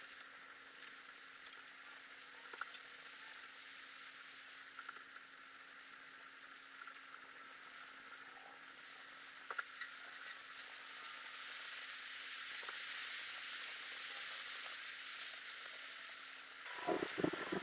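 Steady faint hiss with a low steady hum underneath and a few soft ticks; the hiss grows a little louder in the second half.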